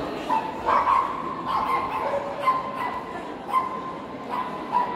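A small dog whining and yipping in a string of short, high cries, one after another at uneven intervals, over the murmur of a large hall.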